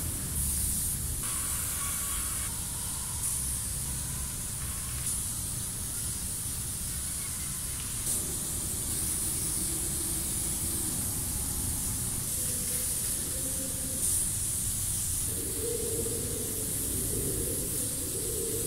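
Aerosol spray can of Molotov Burner Chrome silver paint hissing steadily as the chrome fill-in is sprayed onto a concrete wall.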